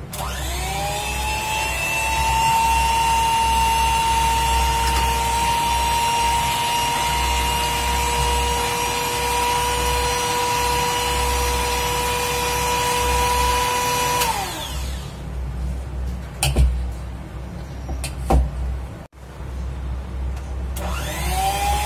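Electric hand mixer whipping cream in a steel bowl: the motor starts up with a rising whine, then runs at a steady high speed. About 14 seconds in it is switched off and winds down. A few knocks follow, and near the end the mixer starts up again with another rising whine.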